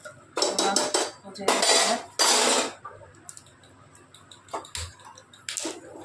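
Steel spoon and utensils clattering and scraping against a pressure cooker pan and the stove top while chhole is stirred. There is a loud run of clatter in the first three seconds, then a few light clinks.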